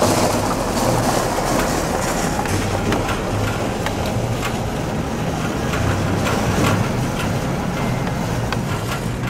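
A vehicle driving slowly up a rough farm lane, heard from inside the cab: a steady low engine hum and road rumble with frequent rattles and clanks.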